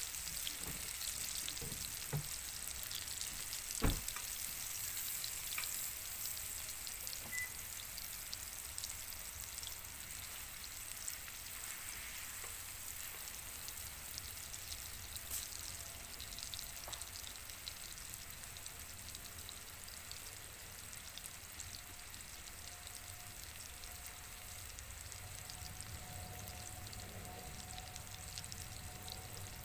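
Wagyu beef steak sizzling and crackling as it fries in a hot pan, a steady spitting hiss throughout. A single sharp knock about four seconds in.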